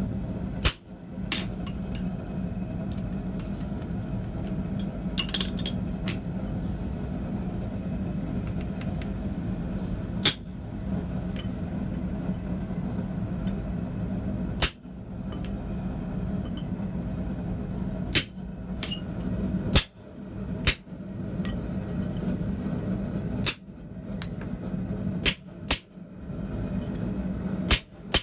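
Hand hammer striking a chisel being driven into hot steel on an anvil, light separate blows several seconds apart at first, coming closer together near the end, over a steady low hum.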